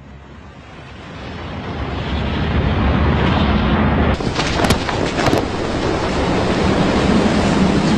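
Film sound effects: a rumbling roar that swells up over the first three seconds and then holds steady. A few sharp crackles come about halfway through, and a low steady hum enters after them.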